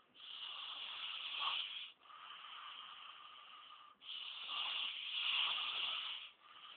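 A sleeping man snoring: two loud snoring breaths of about two seconds each, with quieter breaths between them.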